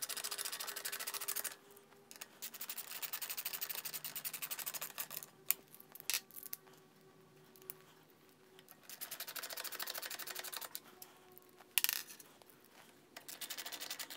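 Hand ratcheting screwdriver clicking in rapid runs as bolts are driven into a carburetor cover, three long runs with a few single light knocks between them.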